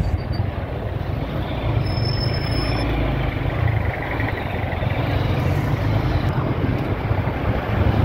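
Motorcycle engine running as it rides slowly past queued traffic, mixed with the steady noise of the surrounding vehicles in a continuous low rumble.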